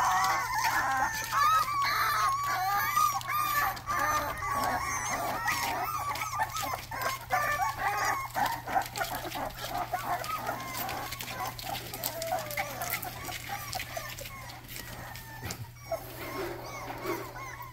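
A litter of young Rottweiler puppies whining and squealing, many short high cries overlapping, busiest at first and thinning out toward the end, with scattered rustling clicks as they crawl over a plastic tarp.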